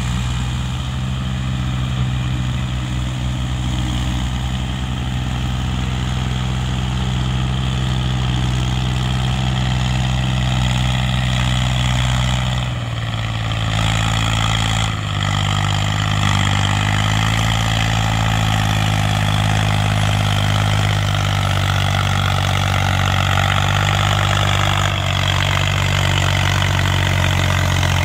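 Massey Ferguson 240 tractor's three-cylinder Perkins diesel engine running steadily under load as it pulls a trailer heaped with soil, its pitch shifting a few times.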